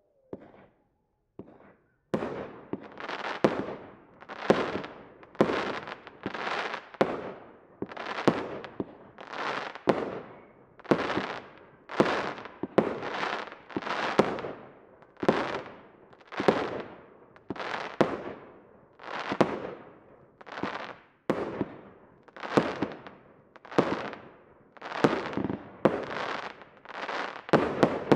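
Consumer fireworks battery (cake) firing: a couple of small pops, then from about two seconds in a steady run of aerial shots bursting one after another, roughly one and a half a second, each bang fading off quickly.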